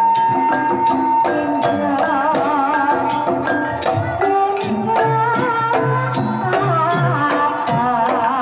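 Banyumasan gamelan playing a tayub gending: regular kendang hand-drum strokes over interlocking bonang and metallophone notes and gongs. A sinden's voice joins about two seconds in, singing long notes with a wavering vibrato, and again from about five seconds.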